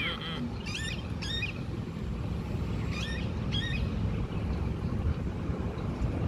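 Black-and-white stray kitten giving four short, high mews, the first two about a second in and two more a little past the middle, over a steady low background rumble.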